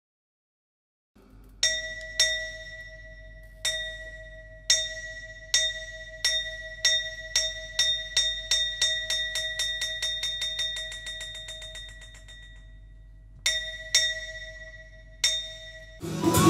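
A small ringing bell struck slowly, then faster and faster until the strokes run into a rapid roll that fades away, followed by three more single strokes. The strikes open a chầu văn ritual piece, and the ensemble music starts right at the end.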